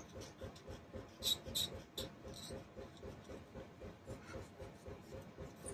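Faint, rhythmic scraping strokes of a small hand scraper on a carburetor's float-bowl gasket surface, with a few light sharp ticks about a second in.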